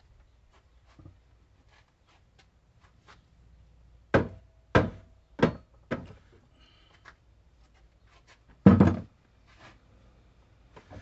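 Four sharp knocks about half a second apart, then a heavier, duller thump a few seconds later, from the cherry bowl blank and the stopped wood lathe being handled by hand.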